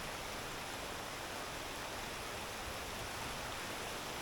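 Waterfall and cascading stream water rushing in a steady, even hiss.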